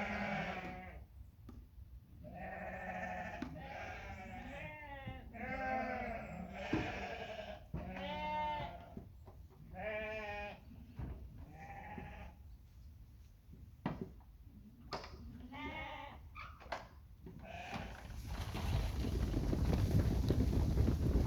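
Dorper sheep bleating, a string of separate wavering calls one after another, some overlapping. Near the end the bleats give way to a louder steady rushing noise.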